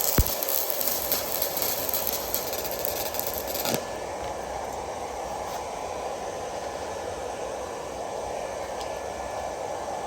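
Arc of a Fitinhot handheld 120-volt stick welder crackling steadily as an electrode rod burns in a weld bead. The high hiss drops off about four seconds in while the crackle goes on.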